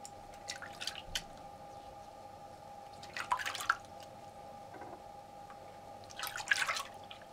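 Hands swishing and splashing in a sink basin of warm soapy water, in three short bursts about half a second, three seconds and six seconds in, over a faint steady hum.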